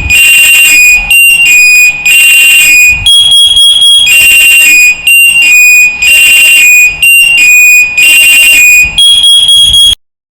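Kai Qi freight lift's electronic door-closing warning: a loud, shrill beeping phrase that steps between a few pitches and repeats about every second and a half, then cuts off suddenly near the end.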